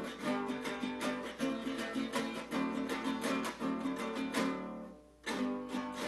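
Cinco larense, a small Venezuelan guitar with six strings in five courses, strummed in quick rhythmic chords as the opening of a golpe curarigüeño. The strumming fades out briefly about five seconds in, then starts again.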